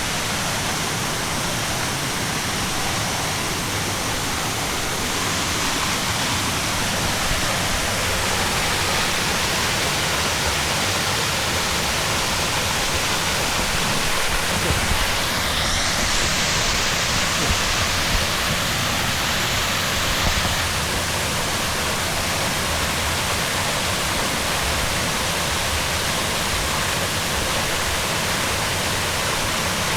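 A waterfall's water rushing steadily: a dense, even hiss of falling water with no pauses.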